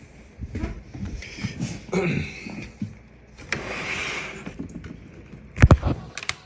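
Handling noise: short rustles and scrapes, a second-long rustle about three and a half seconds in, then a few loud, sharp clicks near the end.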